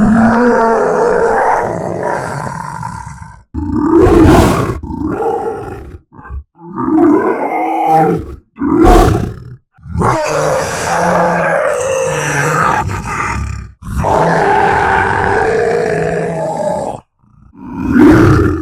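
Uruk-hai orc sound effects: a series of guttural monster roars, snarls and growls, some short and sharp, some held for a few seconds, with brief pauses between them.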